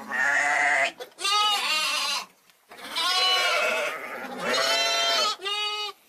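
A young sheep, a lamb or hogget, bleating loudly several times in a row, with short breaks between the calls.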